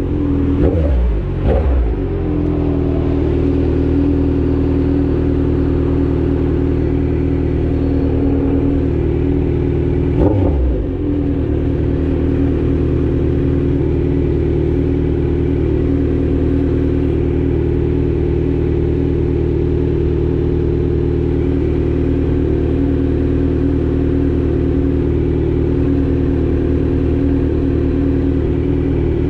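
Kawasaki Z900's inline-four engine through an Austin Racing full exhaust, running at steady revs. The pitch dips and climbs back in the first two seconds, and there is a brief rev blip about ten seconds in.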